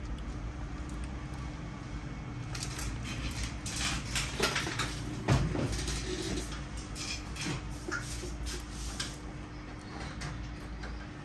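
Repair tools and phone parts being handled: a run of small clicks, taps and scrapes, with one louder knock about five seconds in, over a steady low hum.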